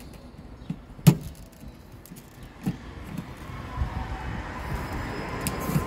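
Sharp plastic clicks and rattles from wiring-harness connectors being handled inside an open tailgate, the loudest click about a second in and another a second and a half later. A vehicle's running noise grows louder over the last two seconds or so.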